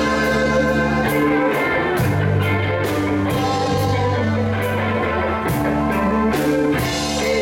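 Live band playing: electric guitars over electric bass and a drum kit with regular cymbal strikes.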